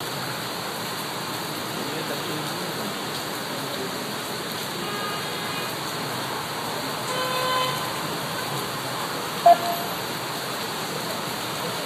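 Steady rush of rain and traffic on a flooded, wet street. A car horn honks for about half a second around seven seconds in, and a short, loud beep comes about two seconds later.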